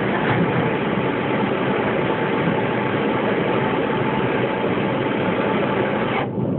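Steady running noise of a rubber-tyred Santiago Metro train, heard from inside the passenger car. Its upper hiss drops off sharply near the end.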